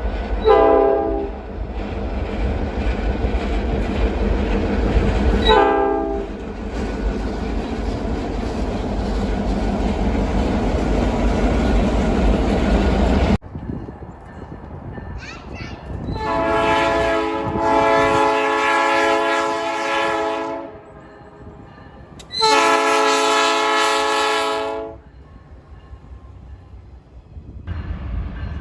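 Train horns sounding. A train runs past with a steady rumble and two short horn blasts about five seconds apart. After a cut, a multi-chime locomotive air horn blows one long chord of about four seconds, then a second of about two and a half seconds.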